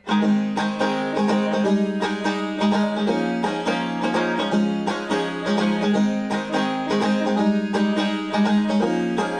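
Background music: an instrumental song intro of fast, steadily picked plucked strings, banjo-like, with no singing yet.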